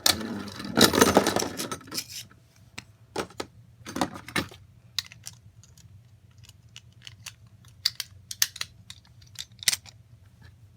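Small hard plastic parts clicking and rattling: a dense clatter about a second in, then scattered sharp clicks.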